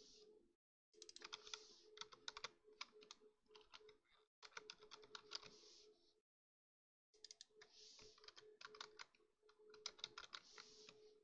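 Computer keyboard typing, faint, in quick runs of keystrokes separated by short pauses, the longest about six seconds in. A faint steady hum runs underneath.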